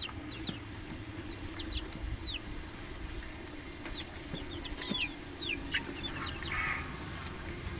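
Chicks peeping: many short, high peeps, each falling in pitch, several birds at once, over a low steady hum.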